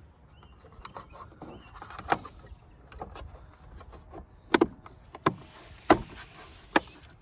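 A Ford F150 side mirror's back cover being pressed on by hand, its tabs snapping into the clips with several sharp clicks.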